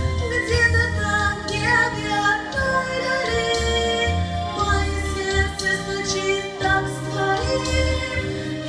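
A Christian song: a female voice singing over backing music, with a low bass line.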